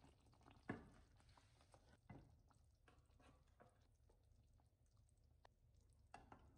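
Faint wet squelches and light clicks of a wooden spoon working thick cream sauce in a pan, with a few louder knocks of the spoon about a second in, about two seconds in and near the end.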